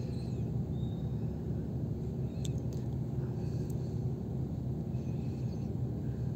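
Steady low engine rumble heard from inside a car on a river car ferry, with a couple of faint clicks in the middle.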